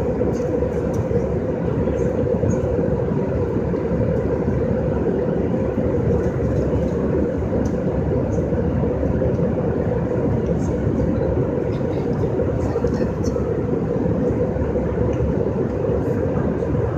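Steady, constant cabin noise of an airliner in flight: the engines and air flow make an even rushing drone that does not rise or fall.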